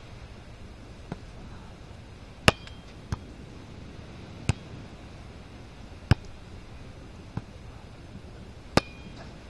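Volleyball being struck back and forth by hand and forearm during a beach volleyball rally: a string of about seven sharp slaps roughly a second or so apart. A few of the harder hits ring briefly.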